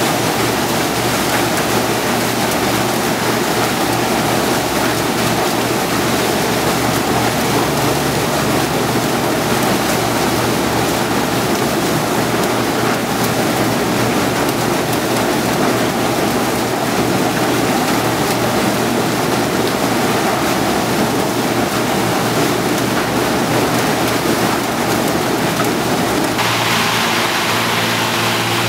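Cut sugarcane stalks tumbling along a sugar mill's feed conveyor, making a loud, steady rushing clatter. Near the end it gives way to the steady hum of large electric motors driving the mill machinery.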